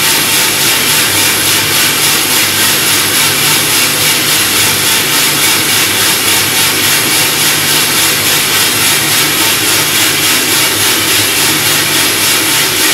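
BC-8 propane-fired commercial drum coffee roaster running: gas burners lit, blower and rotating drum with beans tumbling, a loud, steady rush. This is the start of the roast, just after the beans are charged, as the bean temperature falls toward the turnaround.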